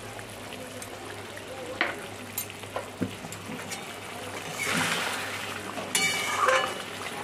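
Curry simmering in a kadai with a faint steady sizzle and bubbling, a few light clicks, and a brief rushing noise about two-thirds of the way through.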